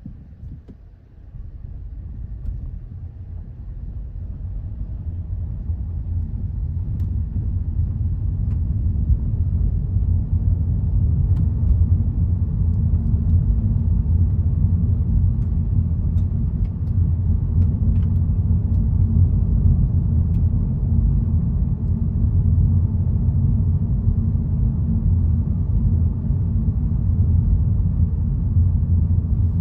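Low road rumble of a Hyundai Elantra CN7 being driven, building over the first ten seconds or so as it gathers speed and then running steady. A few faint knocks come through the rumble, which the owner puts down to the suspension.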